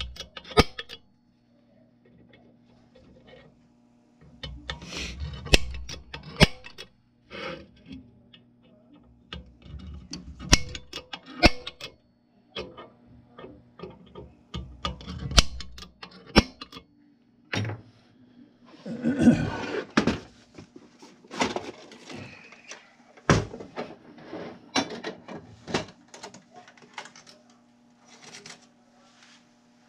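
Sharp metallic clicks of a center punch striking a steel boom section, marking hole locations for pilot holes, with the steel being shifted and handled between strikes. A faint steady hum runs underneath.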